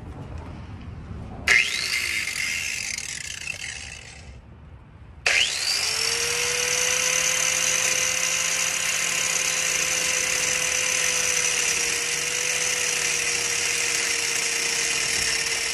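Angle grinder spinning up, running for a few seconds and winding down. It spins up again about five seconds in and runs steadily as it grinds off a seized tie rod end that could not be knocked loose.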